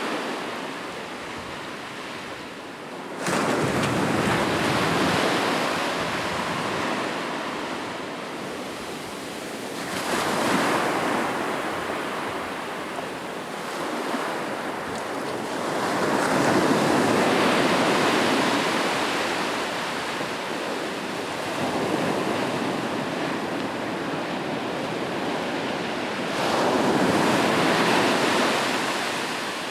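Ocean waves breaking on a beach: a continuous wash of surf that swells and ebbs, with a wave crashing in suddenly about three seconds in and further breakers building around ten, sixteen and twenty-six seconds.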